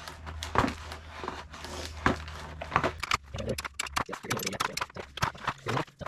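Repeated sharp scrapes of a striker edge dragged down a fire-starter rod, trying to throw sparks onto cardboard, in quick uneven strokes that come faster in the second half. A low steady hum runs underneath and stops about four seconds in.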